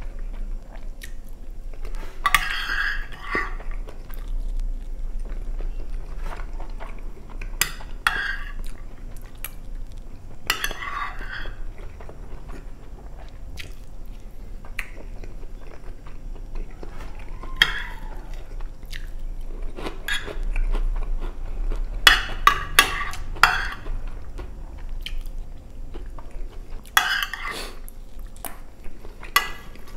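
Close-miked chewing of chicken stroganoff with rice and shoestring potato sticks, in bursts every few seconds, with some crunching. A metal fork clicks now and then against the glass baking dish.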